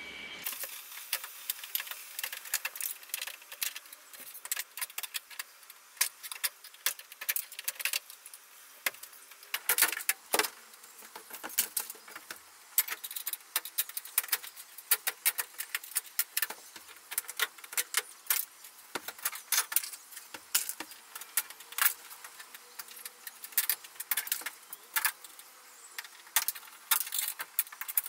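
Quick, irregular clicks and light rattles from hands working the side panels and their fasteners loose from a van's bare sheet-metal wall.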